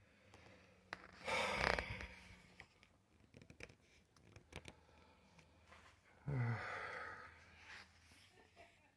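A man breathing out heavily twice: a loud exhale a little over a second in, and a sighing exhale about six seconds in that starts with a short hum. Faint clicks in between.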